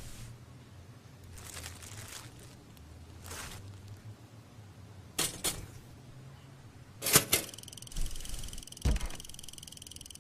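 Several sharp clicks and knocks, then near the end an electronic alarm clock starts sounding: a high-pitched tone pulsing quickly, like a trill.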